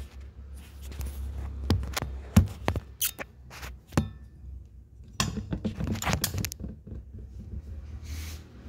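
Handling noise from the phone being moved and set back in place: a string of knocks, taps and rubbing close to the microphone, thickest about five to six and a half seconds in, over a low steady hum.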